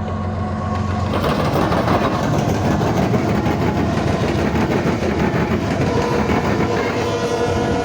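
Norfolk Southern intermodal freight train passing: a low diesel hum, then from about a second in a louder steady rumble of the train rolling by. A faint steady high tone comes in near the end.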